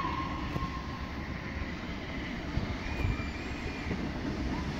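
Distant steam locomotive whistle held on one steady note, ending about a second in, over a low steady rumble. A brief faint higher whistle tone comes around the middle.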